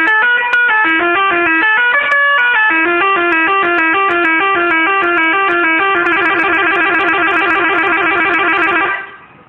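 Telolet musical horn on an angkot minibus, loud, playing a tune of quick stepping notes. About six seconds in it switches to a rapid warbling trill, and it cuts off near the end.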